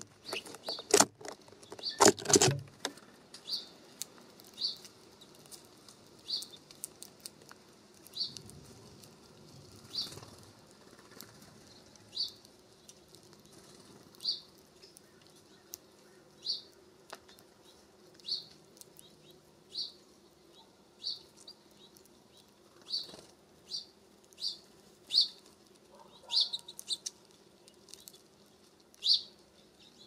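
Small songbirds chirping at a feeder: short, high single chirps repeated every second or two. In the first few seconds a few loud wing flutters and knocks as a bird flies in.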